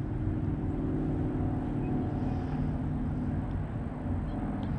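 Steady low outdoor rumble with a faint hum, unbroken and without any distinct events.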